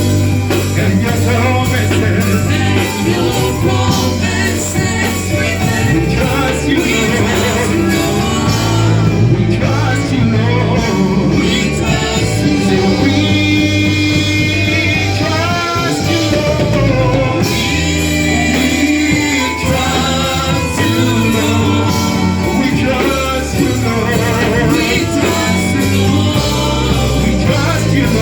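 Gospel worship music played by a band with bass, accompanying singing, continuous and at an even loudness.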